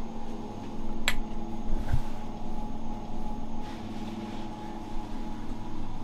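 Steady mechanical hum inside a small elevator car, with a sharp click about a second in and a low thump about a second later.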